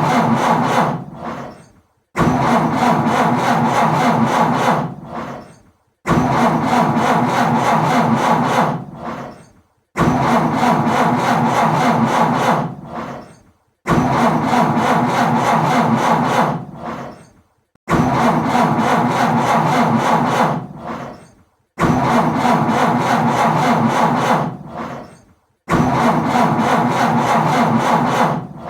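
Car engine cranking on its starter and failing to catch, about seven times over: each try starts abruptly, grinds for a couple of seconds, dies away, and is followed by a short silence before the next.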